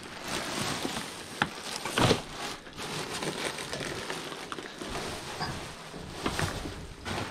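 Plastic rubbish bags rustling and crinkling as they are handled and shifted around in a dumpster, with a sharp knock about two seconds in.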